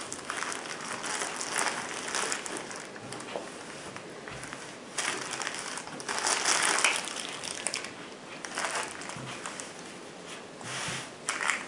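Clear plastic wrapping and a cloth scope wrap crinkling and rustling as the scope is unwrapped by hand. It comes in uneven bursts and is loudest about six to seven seconds in.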